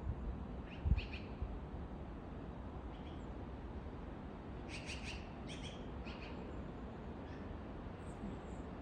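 Small birds chirping: a couple of short high chirps about a second in, then a quick run of several chirps around the middle, and a faint call near the end. A low thump about a second in.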